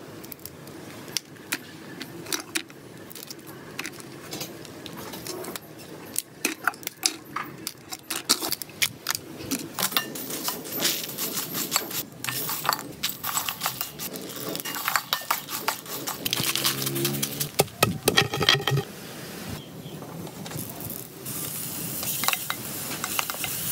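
Repeated clinks, knocks and scrapes of cookware, including a ladle stirring dried chillies in a metal wok. Near the end, a steady sizzle rises as garlic starts frying in oil.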